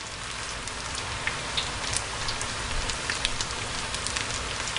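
Batter-coated cauliflower florets deep-frying in hot oil: a steady sizzling hiss with dense crackles and pops. This is the first frying of a double fry, which half-cooks the florets.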